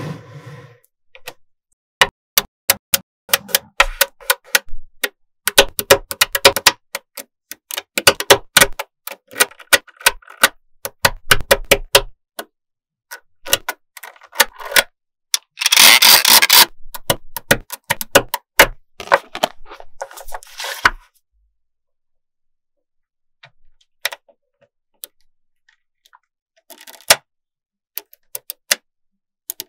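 Small magnetic balls clicking and clattering as they snap together and are pressed into rows, in quick runs of sharp clicks. A louder rattling burst comes about halfway through, and near the end only a few scattered clicks.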